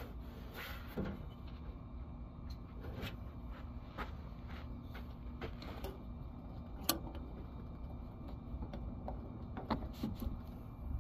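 Small parts of a removed fuel pump assembly being handled and worked apart: scattered light clicks and knocks, with one sharper click about seven seconds in.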